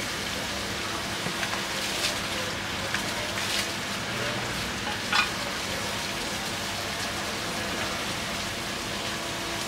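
A few sharp knocks and scrapes as a cleaver cuts through a fish fillet on a wooden chopping block, the loudest about five seconds in, over a steady hiss of market background noise.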